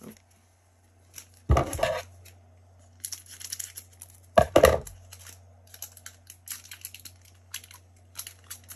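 Foil wrapper of a Pokémon card booster pack being torn open and crinkled by hand. Two louder rips come about a second and a half and about four and a half seconds in, with a run of small crackles from about three seconds on.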